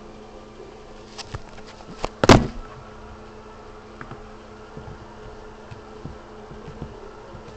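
A steady low buzzing hum, with a few sharp clicks and one loud knock about two seconds in, then faint ticks.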